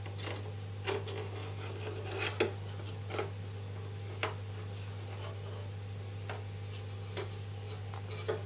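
Irregular light taps and clicks, the loudest a little over two seconds in, over a steady low hum.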